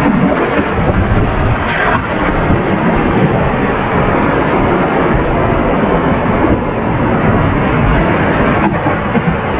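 Whitewater rapids of a rain-swollen mountain stream, rushing water making a loud, steady roar.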